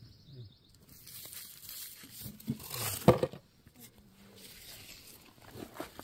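Crunching and scraping in loose, gravelly red clay soil as it is dug through or stepped on, with a louder crunch about three seconds in.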